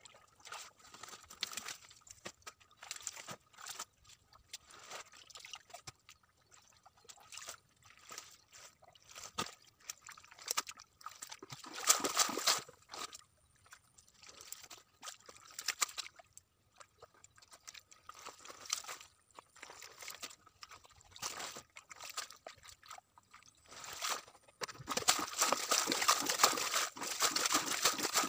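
Shallow muddy water sloshing and splashing in short, irregular bursts, with a louder splash about twelve seconds in and a longer, denser stretch of splashing near the end.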